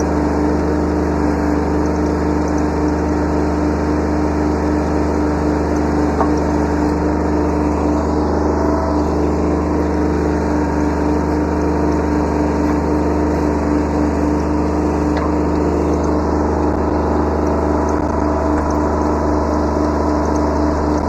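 Kubota B7100 subcompact tractor's three-cylinder diesel engine running at a steady speed, with a steady droning tone.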